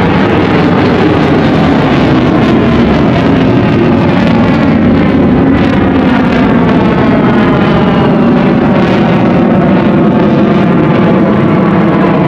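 Eurofighter Typhoon's twin EJ200 jet engines at full power in reheat, a loud, continuous roar whose pitch slowly shifts as the jet manoeuvres.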